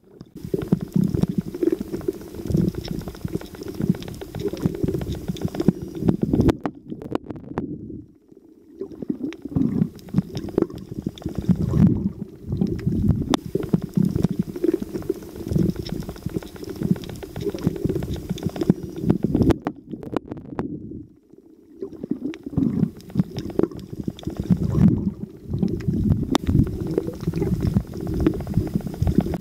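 Muffled, low churning rumble of water heard through an underwater camera during a freedive, with gurgling. It drops away briefly twice.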